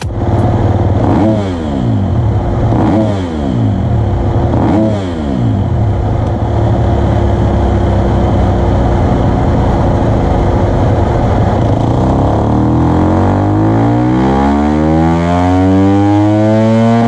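2021 KTM 250 SX-F single-cylinder four-stroke motocross engine running on a chassis dynamometer. It blips the throttle three times in the first few seconds, runs steadily in gear, then climbs in pitch in one long full-throttle dyno pull over the last several seconds.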